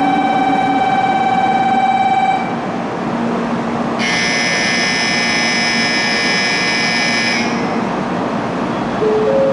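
Electronic signal tones at a Shinkansen platform beside a stopped N700 Series train. A steady buzzing tone stops about two and a half seconds in. About a second and a half later a shrill electronic bell rings for about three and a half seconds, and near the end there is a short rising chime of four notes.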